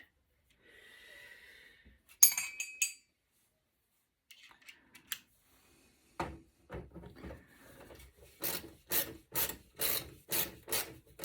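Hand tool working at corroded screws stuck fast in a computer board: a few sharp metal clicks, then repeated scraping strokes at about two a second.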